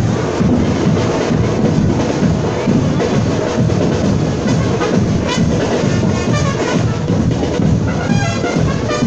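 Marching band playing: a steady, dense beat of bass and snare drums, with short higher melodic phrases coming in about five seconds in and again near the end.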